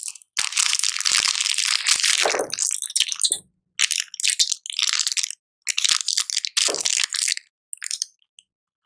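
Crunching and crushing noise in a series of loud bursts with short gaps between them, as of a crisp biscuit being crushed.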